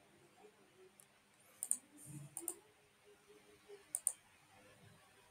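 Faint computer mouse button clicks: three short pairs of sharp clicks over about two and a half seconds, each a press and release.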